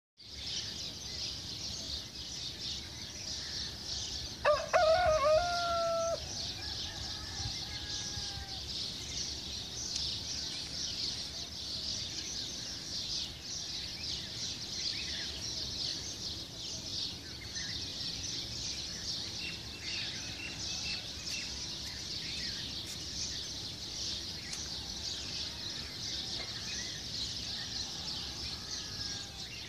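A rooster crows once, loudly, about four and a half seconds in, with a fainter call trailing after it. A steady high chirring runs underneath throughout.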